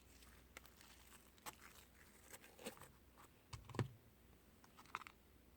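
Slime being squished and pulled apart by hand: soft scattered clicks and small sticky pops, with one louder thump about two-thirds of the way through.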